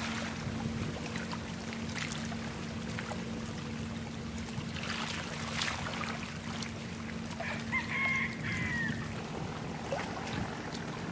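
A steady low hum with a constant drone and water wash from a large container ship passing close by on the river. About seven and a half seconds in, a short bird call lasting about a second and a half rises above it.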